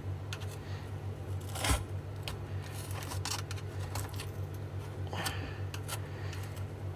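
Hand tools cutting and scraping at the silicone potting inside an e-bike battery pack, with one sharp click about two seconds in and a soft scrape around five seconds in, over a steady low hum.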